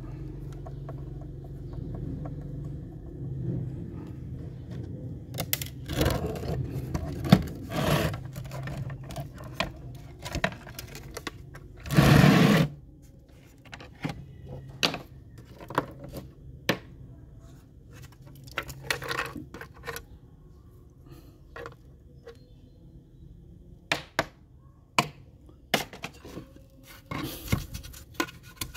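Plastic parts of a toy remote-control excavator being handled and taken apart: scattered clicks, knocks and scrapes, with one loud half-second hiss about twelve seconds in.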